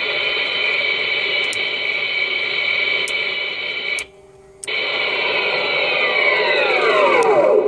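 KITT replica's turbine sound effect played through the car's speakers: a steady jet-turbine whine. It cuts out for about half a second around four seconds in, then resumes and winds down, falling in pitch near the end.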